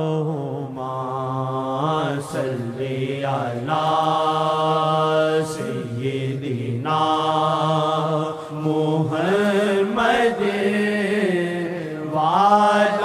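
A solo voice singing the opening of a naat with no instruments, in long held notes that slide slowly up and down with brief breaks for breath.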